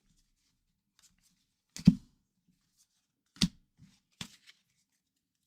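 Hockey trading cards and packs being handled on a table: three sharp knocks, the loudest about two seconds in and two lighter ones over the next couple of seconds, with faint card rustling and ticks between.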